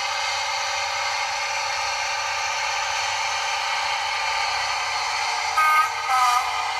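A Bachmann Class 55 Deltic model's DCC sound decoder playing the steady running sound of the locomotive's Napier Deltic engines through its small speaker. Near the end the two-tone horn sounds: a short high note, then a short lower one.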